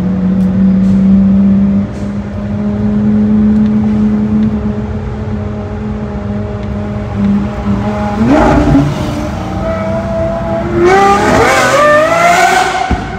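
Lamborghini Aventador Ultimae's naturally aspirated V12, fitted with a Gintani exhaust, idling loud and steady. About eight seconds in it is blipped once, and near the end it revs up with a rising pitch.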